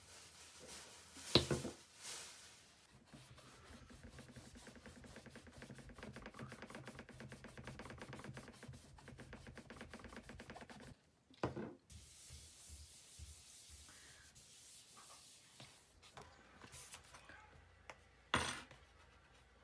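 A tissue wetted with acetone scrubbed fast back and forth over a laptop lid, wiping off leftover sticker glue. A sharp knock about a second in and another near the end.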